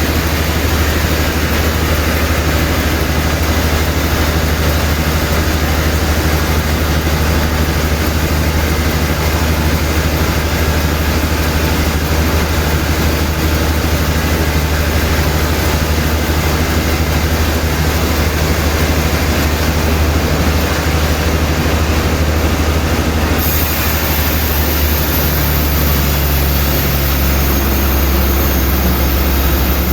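Sawmill machinery running with a loud, steady low drone. A high hiss joins about three quarters of the way through.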